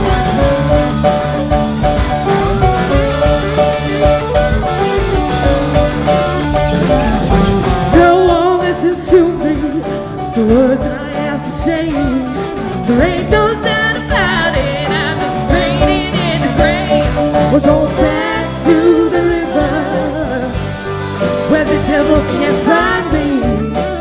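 Live band music from electric guitars, bass guitar, keyboard and drum kit, with a woman's singing voice coming in over it about eight seconds in.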